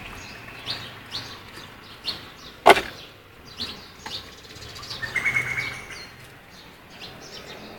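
Birds chirping, with short high calls scattered throughout and a quick trill about five seconds in. A single sharp knock a little under three seconds in is the loudest sound.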